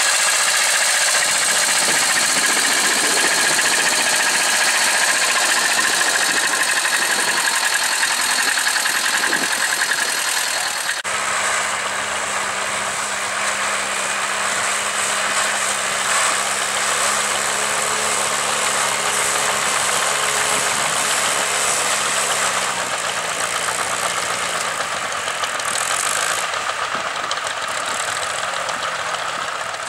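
Vintage tractor engines running under load while pulling ploughs. After a cut about a third of the way in, one engine runs with a steady note that drops in pitch about two-thirds of the way through.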